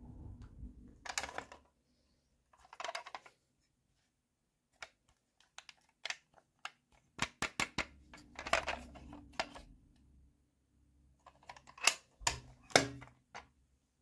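Small hard plastic toys handled by hand: scattered sharp clicks and light rustling, with quick runs of clicks about halfway through and again near the end.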